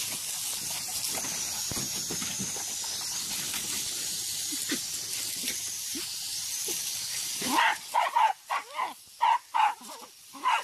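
A handheld nozzle hisses steadily as it sprays, then puppies start barking about seven and a half seconds in, with about ten quick, high yaps.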